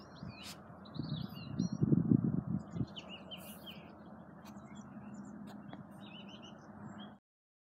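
Small birds chirping in quick, repeated twittering notes, over wind rumbling on the microphone in gusts, strongest about two seconds in. The sound cuts off suddenly near the end.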